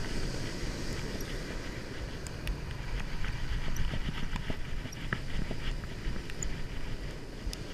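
Wind buffeting the microphone in a heavy, uneven rumble over the steady wash of breaking surf, with scattered light clicks and taps.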